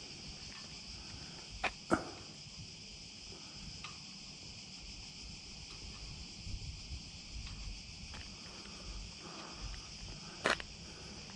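Steady high-pitched chorus of cicadas, with a few sharp clicks: two close together about two seconds in and one near the end.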